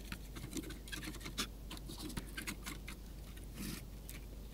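Scattered light clicks and ticks, with a brief scratchy rub a little before the end, from a TV circuit board being handled and cleaned of dust.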